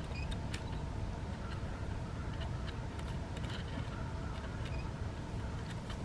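Handheld Canon SX70 HS superzoom camera's own operating noise picked up by its built-in microphone: scattered faint clicks and ticks from the lens mechanism over a steady low handling rumble and a faint hum.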